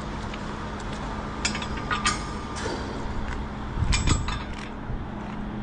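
Sharp metallic clicks and clinks from a ratchet torque wrench with a 32 mm socket being worked on the steel stud bolts of a pipe-plug ring clamp, in small clusters with the busiest run about four seconds in. A steady low hum runs underneath.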